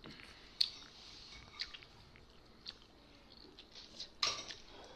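Close-up eating sounds: a few sparse chewing clicks, then a short clatter of tableware about four seconds in.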